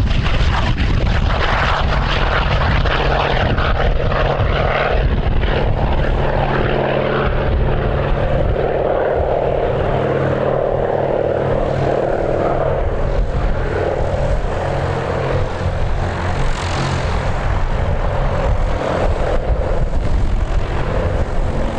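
Hawker Tempest II's Bristol Centaurus radial engine and propeller running at takeoff power, a steady loud drone, with wind buffeting the microphone.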